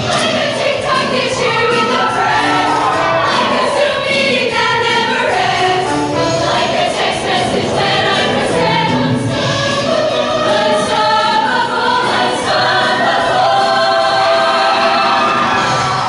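High school show choir singing in harmony during a performance, many voices together over musical accompaniment.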